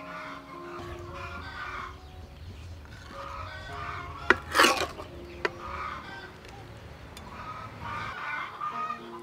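Chickens clucking in the background over soft background music, with a sharp click and a brief noisy burst about four seconds in.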